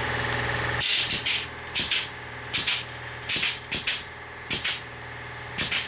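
Grease gun pumping grease into the grease fitting of a new aftermarket ball joint, a short hissing spurt with each stroke, about one a second.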